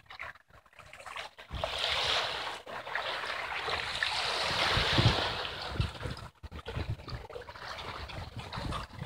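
Small sea waves washing and splashing against shoreline rocks, rising in from about a second and a half in, with wind buffeting the microphone in low thumps.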